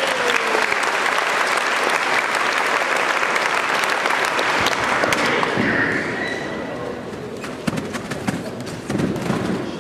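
Audience clapping, heavy at first and thinning out about halfway through, with a few sharp thumps in the second half.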